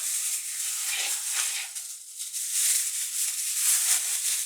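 Plastic bag rustling and crinkling as it is handled, a continuous rustle that swells and dips.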